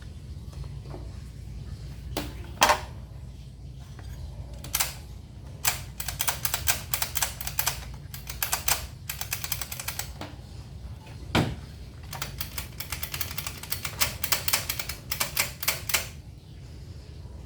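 Hand tools working on a petrol inverter generator: a few single sharp clicks and knocks, then two long runs of rapid clicking, over a steady low hum.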